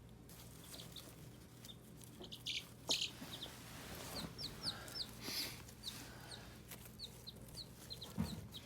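Chicks peeping: many short, high chirps that slide downward, repeated in quick runs. A couple of sharp knocks, the loudest sounds, come about three seconds in and near the end.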